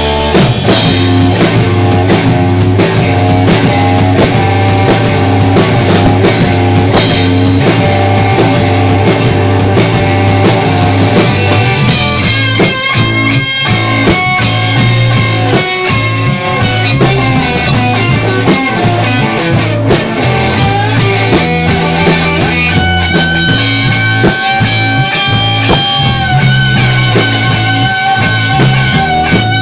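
Loud rock music with guitar and drums playing continuously.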